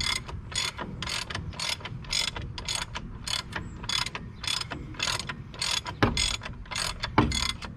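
Hand ratchet wrench clicking in steady strokes, about two clicks a second, as it backs off the wheel-clamp nuts on a spoke-style truck hub.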